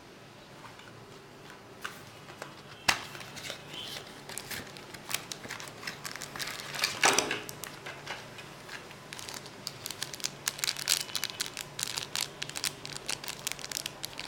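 Packaging being handled and opened, crinkling and tearing with scattered sharp clicks. There is one louder rustle about seven seconds in, and the crinkling gets busier from about nine seconds on.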